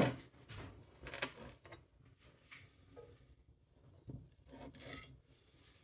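Faint, scattered rubbing and scraping handling noises, several short ones spread out with quiet between them.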